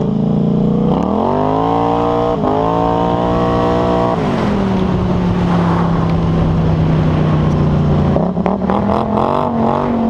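Polaris Scrambler 850's parallel-twin engine through an RJWC slip-on exhaust, revving up about a second in and holding high revs for a few seconds. It drops back to a steady lower speed, then revs up again unevenly near the end.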